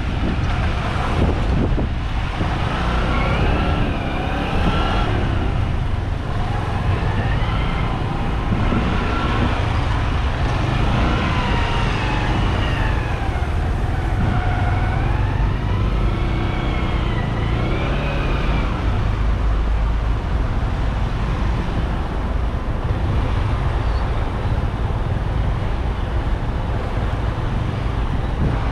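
Steady wind rumble and road noise from riding a motorcycle in traffic, picked up by a helmet-mounted GoPro Hero 8's built-in microphone. A siren wails up and down through the first two-thirds, fading out about nineteen seconds in.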